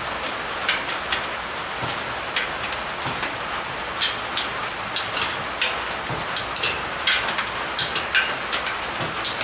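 Socket wrench ratcheting in short runs of sharp clicks as it snugs down the crankcase nuts on a VW engine case, the clicks coming more often from about four seconds in.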